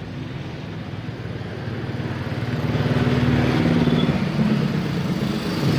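Koozer XM490 Pro rear hub's freehub ratchet buzzing as the wheel freewheels: a dense, wasp-like buzz that grows louder about halfway through.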